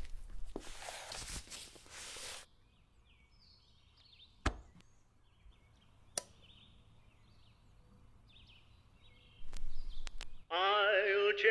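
A rush of noise for about two seconds, then a quiet stretch with faint bird chirps, broken by a few sharp clicks; the loudest click comes about halfway through. Near the end a singing voice with strong vibrato starts over music, as a record begins to play.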